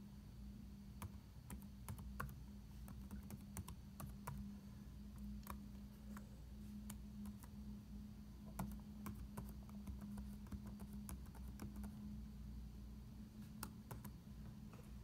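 Laptop keyboard typing: irregular key clicks as a short line of code is entered, over a steady low hum.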